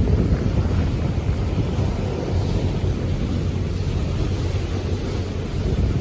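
Strong wind buffeting the microphone over the steady low rumble of a sightseeing cruise boat under way.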